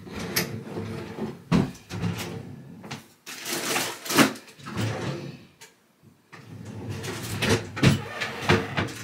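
Rummaging through drawers and cupboards: drawers and doors opened and shut, with several sharp knocks and some rustling of things being moved about.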